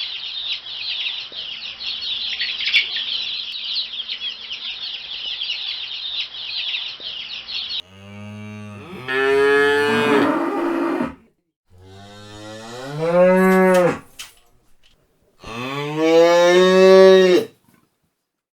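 A flock of chickens chattering in dense high-pitched calls, cut off abruptly about eight seconds in. Then a cow moos three times, each moo a long call that rises, holds and drops away.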